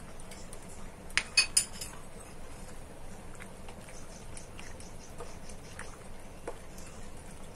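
Pot of penne cooking in water, with a quick cluster of sharp clinks of a spoon against the pot just after a second in, then a few faint knocks as the pasta is stirred.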